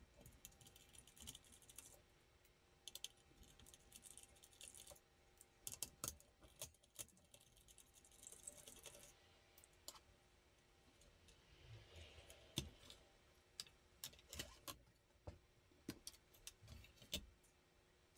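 Faint scratchy ticking of a small screwdriver turning out the backplate screws of a graphics card, then scattered light clicks and small knocks as the screws and the metal backplate are handled.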